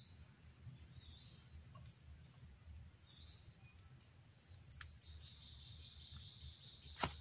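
Steady high-pitched insect drone, like crickets, with a few short rising chirps and a sharp click near the end.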